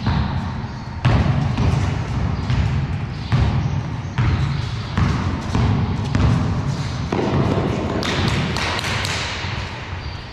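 Basketball bouncing on a bare concrete floor in a large echoing hall: dribbles and thuds about once a second, unevenly spaced, each followed by a short echo.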